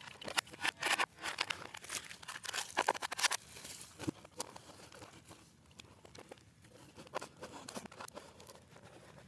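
Cardboard box flaps and rubbish crackling and rustling as hands handle the box and its contents, with a dense run of crackles and knocks for the first few seconds, then sparser and quieter.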